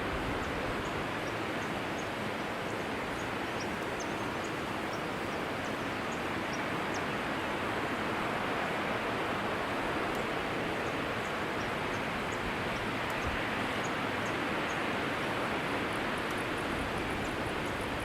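Waterfall rushing steadily, a constant even roar of falling water, with faint scattered high chirps above it and a rapid high pulsing series near the end.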